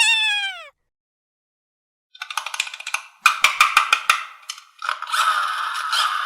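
A short falling tone, a pause, then fast clicking that turns into a steady rattle of small plastic parts, like toy gears or a toy mechanism running.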